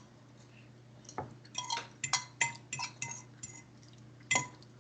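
Eating utensil clinking against a dish: a quick run of light clinks that ring briefly, with one louder clink near the end.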